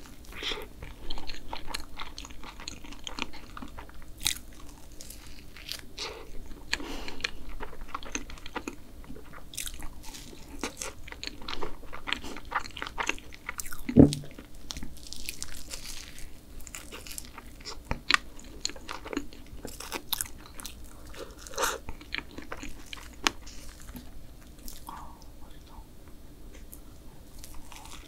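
Close-up bites and chewing of a strawberry cookie choux, a cream puff with a crisp cookie crust, giving many small crunchy crackles. A single sharp thump, the loudest sound, comes about halfway through.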